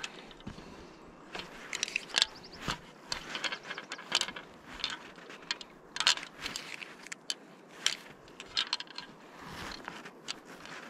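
Irregular clicks and rattles of fly-fishing tackle being handled while the fly is changed: a clear plastic fly box opened and shut and its flies picked through, then line and fly worked by hand at the rod.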